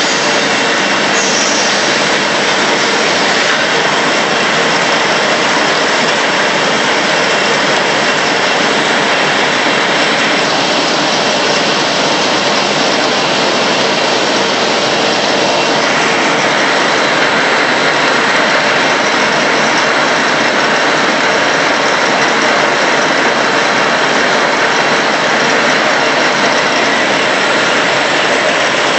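Automatic A4 paper roll-to-sheet cutting machine running, a loud, steady mechanical din with no distinct beat.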